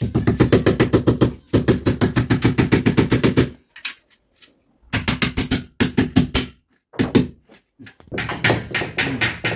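Hammer tapping rapidly on a steel split-AC wall-mounting plate as it is fixed to the wall, quick strikes of about eight to ten a second in four or five runs with short breaks between them. The sheet-metal plate rings under the blows.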